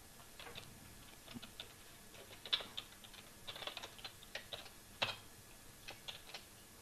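Typing on a computer keyboard: a faint, irregular run of key clicks, with two harder strikes about two and a half and five seconds in.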